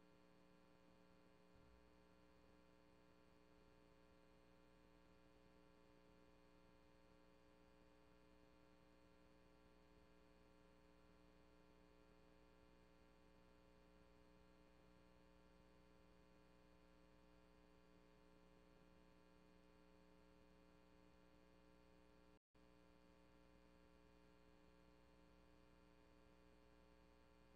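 Near silence: the recording has lost its sound, leaving only a faint, steady electrical hum, which cuts out for an instant about three-quarters of the way through.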